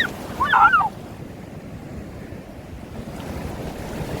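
Ocean surf and wind buffeting the microphone, with a brief high-pitched cry in the first second.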